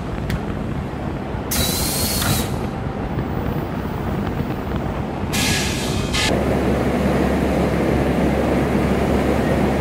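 Vacuum forming machine for suitcase shells running, a steady machine noise with two short hisses of air, about two seconds in and again about five and a half seconds in. Just after the second hiss, the running noise steps up louder and stays there.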